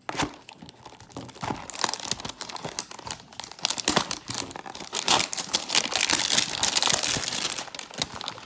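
Packaging of a new Pokémon card box being torn open by hand: irregular crinkling and tearing, busiest past the middle.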